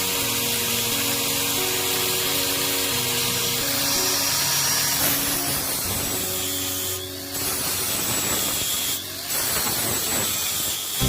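Background music over the steady hiss of a power tool, which breaks off briefly twice in the second half.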